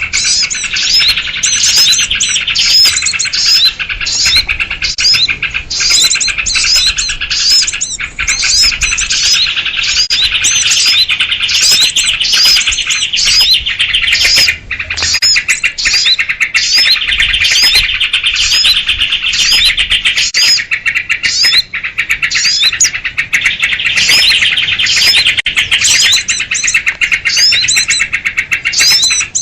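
A loud, dense, unbroken chorus of rapid bird chirps and chatter: a 'kutilang ribut' bird-trapping lure recording of agitated sooty-headed bulbuls, used to call in small birds.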